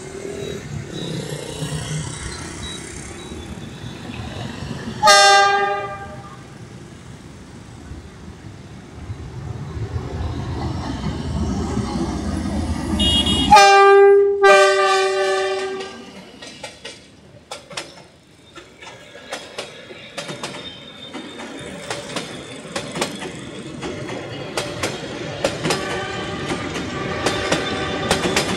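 Đổi Mới class D19E diesel-electric locomotive approaching and passing with a passenger train: a short horn blast about five seconds in, a low engine rumble growing louder, then a longer horn blast about halfway through. The coaches then roll by, their wheels clacking rhythmically over the rail joints.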